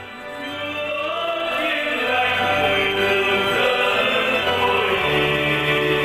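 Vietnamese Catholic hymn sung with instrumental accompaniment. It swells from a brief dip at the start into the refrain.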